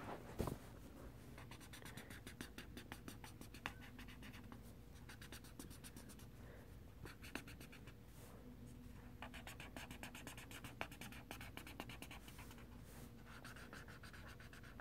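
Sharpie highlighter scribbling on a paper colouring page: faint, rapid back-and-forth strokes with a few short pauses.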